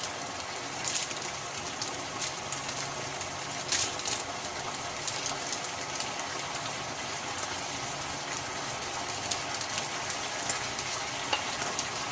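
Vegetables, chayote among them, sizzling in hot oil in a wok after garlic and onion have been sautéed, a steady crackling hiss with a few sharp clicks.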